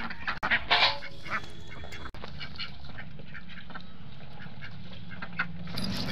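Stone pestle crushing and rubbing garlic cloves on a flat grinding stone, with a short run of loud animal calls about half a second in.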